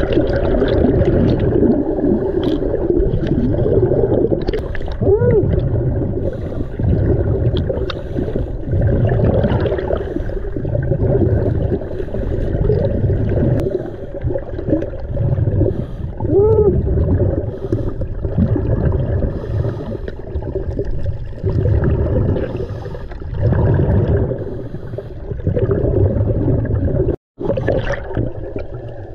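Scuba diver's regulator breathing heard underwater: exhaled bubbles rumbling and gurgling in swells every few seconds, with two brief warbling tones. The sound cuts out for a moment near the end.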